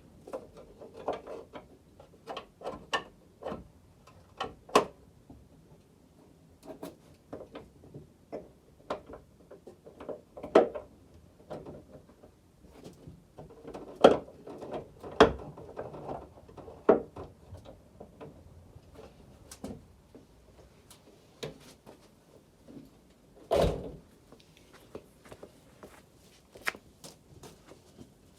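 Irregular knocks and clunks of hand tools working on seized parts under the car, with a heavier thud about 23 seconds in.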